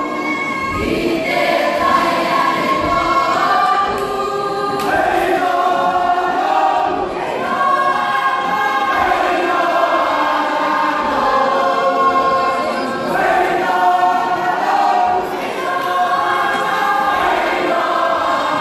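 A Cook Islands performing group singing together as a choir, many voices in harmony in a continuous song.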